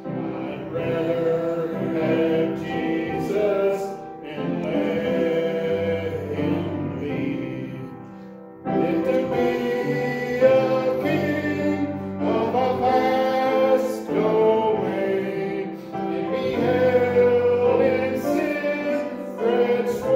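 A group of voices singing a hymn, church music with long held phrases. There is a brief break about eight and a half seconds in before the next phrase begins.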